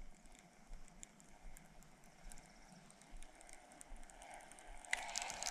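Faint, irregular patter of light raindrops tapping on the boat and gear, over a soft hiss, growing louder near the end.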